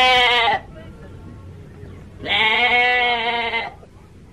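Lamb bleating twice: a call that breaks off just over half a second in, then a longer steady bleat of about a second and a half in the middle.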